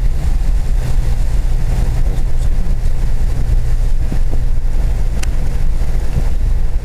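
Steady low drone of a car's engine and tyre noise, heard from inside the cabin while driving.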